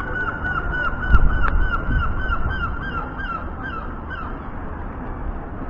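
A gull calling a long run of short, downward-hooked yelping notes, about three a second, fading away about four seconds in. A low rumble of wind on the microphone runs underneath, with a single sharp knock about a second in.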